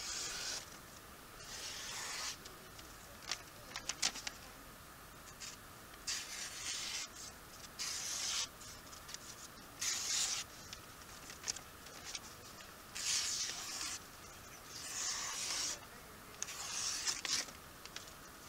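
Dave Mize Cumberland Plateau Bushlore knife slicing through a hand-held sheet of paper in a paper cutting test of its edge: about eight separate hissing swishes, one every one to three seconds, with a few light clicks about four seconds in.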